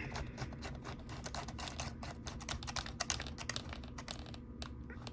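Quick, irregular run of small clicks as the battery pack is screwed onto the camera body by hand.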